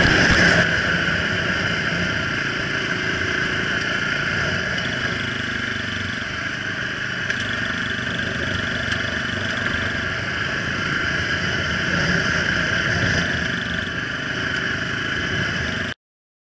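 Steady engine and road noise of a vehicle driving along a gravel dirt road, recorded on board. The sound cuts off abruptly near the end.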